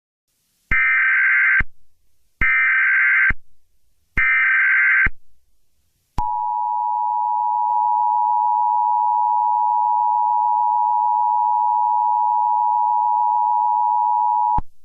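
Emergency Alert System header: three short bursts of screechy SAME data tones, each just under a second, then the steady two-tone EAS attention signal held for about eight seconds before cutting off. The sequence marks the start of a new alert message.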